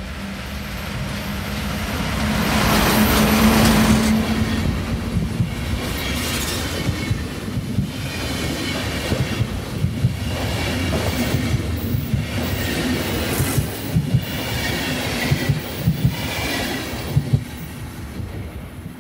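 Swiss electric locomotive-hauled passenger train passing close by. It builds to its loudest as the locomotive goes past a few seconds in, then the coaches roll by with sharp wheel clacks over rail joints and a thin wheel squeal, and the sound fades near the end.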